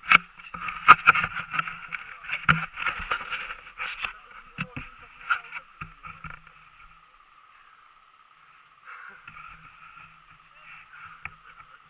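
Dirt bike engine running at low revs, heard thin and muffled through a helmet-mounted camera, with a run of knocks and bumps in the first half; the engine sound drops away for a moment past the middle and comes back near the end.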